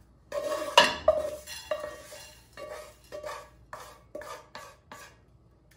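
Wooden spatula scraping freshly roasted rolled oats out of a frying pan onto a plate: a run of about ten scrapes and knocks, the loudest about a second in, thinning out towards the end.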